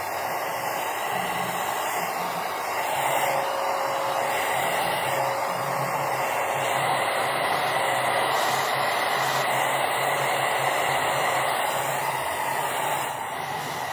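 Handheld hair dryer running steadily while drying hair: a continuous rush of air with a faint steady motor whine.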